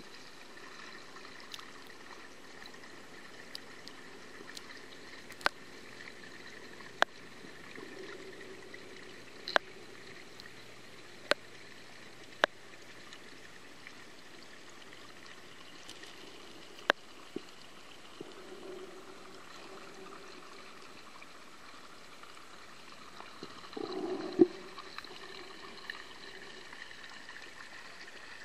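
Underwater pond ambience picked up by a submerged camera: a steady watery hiss. Sharp clicks come every second or two at first, and a louder gurgle with a knock comes near the end.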